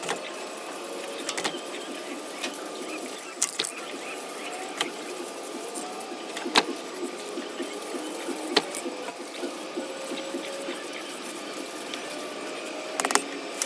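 Aerosol spray can hissing steadily as paint is sprayed on in a thick coat, over a steady mechanical hum, with a few sharp clicks.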